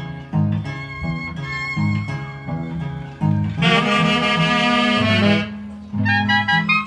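Live Huancayo orquesta típica music. A plucked bass line keeps a steady beat, then about three and a half seconds in the saxophones come in with a loud held chord, followed by short, clipped phrases.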